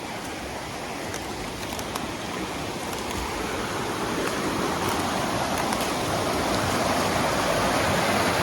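Rushing water of a waterfall and stream, a steady hiss that slowly grows louder.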